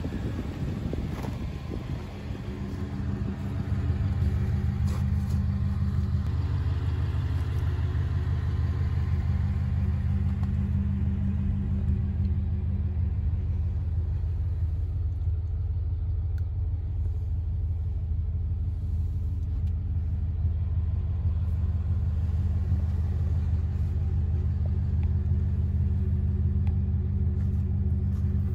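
2013 Ford F-150 FX4 pickup's engine idling, a steady low rumble that grows a little louder about four seconds in.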